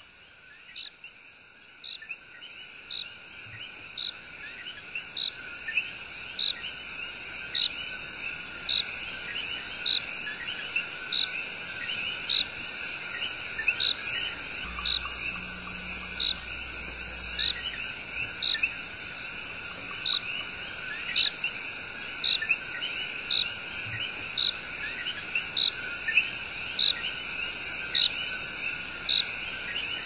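Rainforest night chorus of coqui tree frogs and insects: a steady high insect drone under many overlapping short rising frog calls, with sharp chirps repeating about once a second. The chorus swells up over the first few seconds, and a brief low rumble comes about halfway through.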